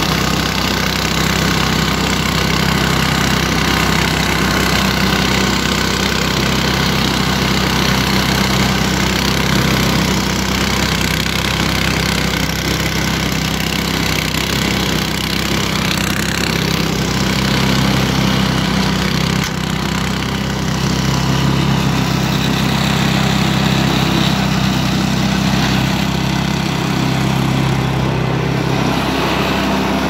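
Small gasoline engine of a homemade remote-control snow blower, running steadily as the machine clears snow.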